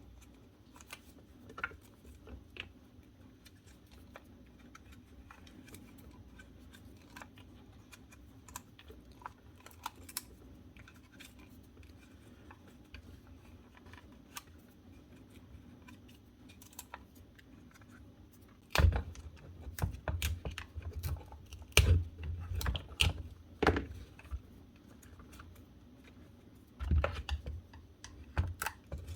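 Small clicks, scratches and knocks of hand tools picking at the plastic housing and motor shaft of a cordless strimmer, clearing out wound-up grass and plastic that had jammed the motor. Faint, scattered ticks at first, then bursts of louder clattering and knocking about two-thirds of the way in and again near the end.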